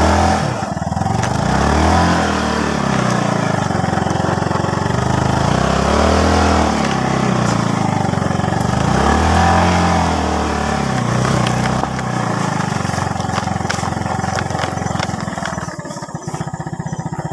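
Small motorcycle engine running while riding, its pitch rising and falling three times as the throttle is opened and eased off, then holding steadier. A few sharp clicks and knocks come near the end, as the engine note drops.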